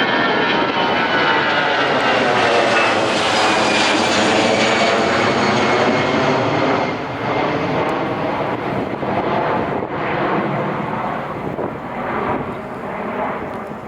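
An airliner's engines pass close by, loud, with a high whine that slowly falls in pitch. After about seven seconds the sound drops off into an unsteady, fluctuating rumble as the aircraft moves away.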